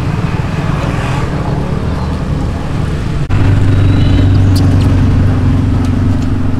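Steady low engine rumble, jumping louder and more even after an abrupt cut about three seconds in.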